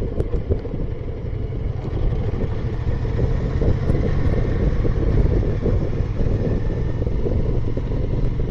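Motorcycle riding along a road: engine running under a heavy rumble of wind on the microphone, growing a little louder about two seconds in.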